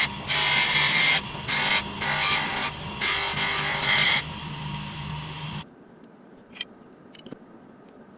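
Abrasive rasping strokes against a running power tool, several in a row over its steady motor hum; the motor stops about five and a half seconds in, followed by a couple of light clicks.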